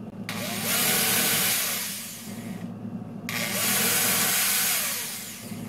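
Corded electric drill run twice, about two seconds each, its motor spinning up and winding down each time while it bites into metal, starting shallow spot holes through a bearing bracket's mounting holes into an aluminium frame.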